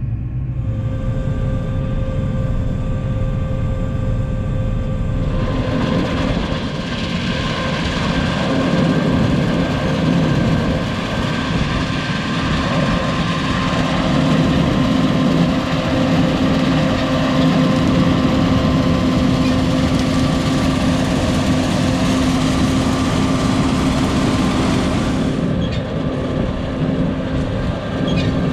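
John Deere 9510 combine running steadily with a constant hum of several tones. About five seconds in a louder rushing noise joins it and holds until near the end.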